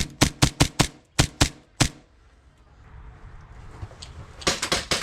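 HPA-powered airsoft pistols firing: a quick string of about eight sharp shots in the first two seconds, then a pause, then a rapid even string of about six shots a second starting near the end.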